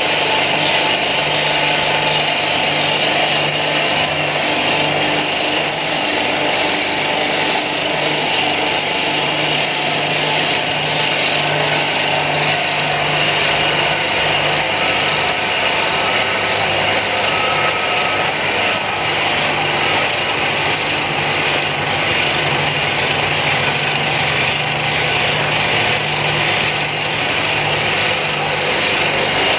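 Rod chamfering machine running steadily: its electric motor hums under a dense mechanical hiss as the chain conveyor carries steel rods through, with a regular light clicking throughout.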